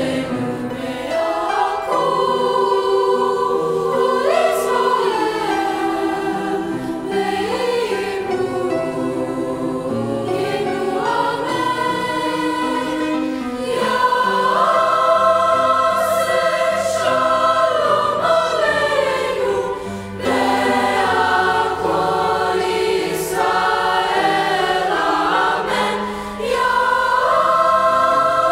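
Mixed chorus of teenage voices singing in parts, holding long sustained notes and moving between chords, with short breaths between phrases about two-thirds of the way through and near the end.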